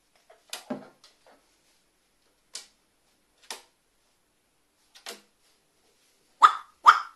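Pet carrion crow giving its short, sharp 'wa-wa' call twice in quick succession near the end, loud and about half a second apart. Before that there are a few faint scattered clicks.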